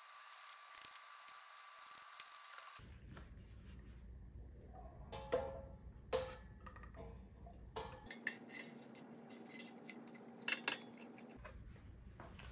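Faint handling sounds of Command strips being peeled and a carved wooden wall panel being pressed onto a brick wall: a few light clicks and knocks.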